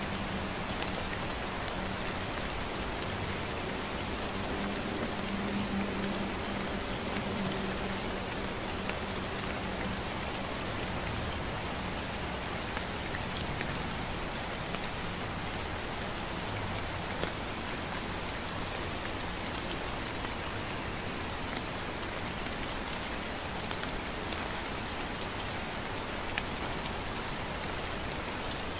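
Gentle, steady rain falling, an even hiss scattered with the small ticks of single drops.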